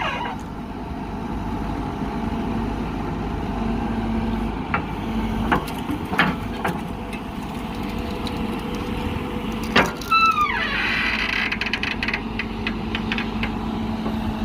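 JCB backhoe loader's diesel engine running steadily, with a few sharp clanks about halfway through and a louder clank a few seconds later, followed by a short falling squeal.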